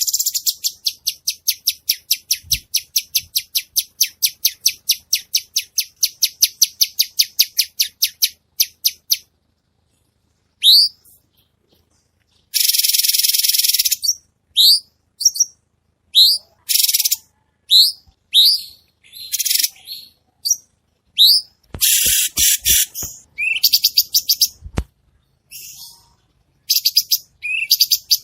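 Cucak cungko songbird singing: a fast run of sharp, dry high notes, about five a second, for the first nine seconds, then after a pause upward-sweeping whistles mixed with short harsh, buzzy bursts. A few low thumps fall in the last third.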